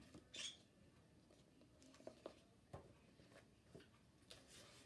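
Near silence, with a few faint rustles and soft clicks as the paper pages of a picture book are turned by hand.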